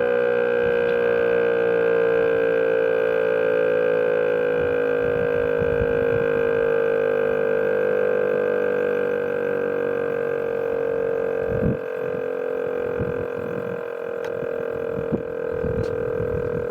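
VEM DS977 mechanical civil-defence siren sounding a steady tone that slowly falls in pitch as it winds down at the end of the test signal.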